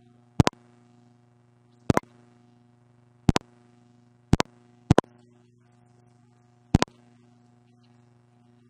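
Steady low electrical hum with six sharp double clicks at uneven intervals, two of them close together a little past the middle.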